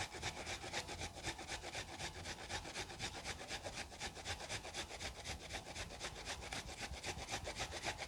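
Fresh peeled ginger root being rubbed back and forth on a fine hand grater: quick, even rasping strokes, several a second.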